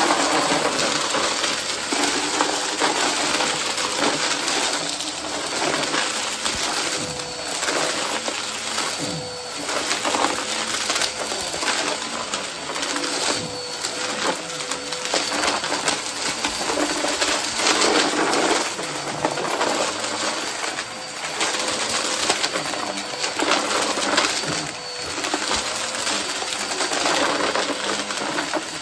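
Vacuum cleaner running steadily with a faint motor hum, and small debris rattling and clicking through it.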